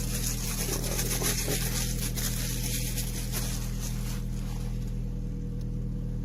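Steady low hum of a car engine idling, heard inside the cabin, with light crinkling from the receiver and its packaging being handled during the first few seconds.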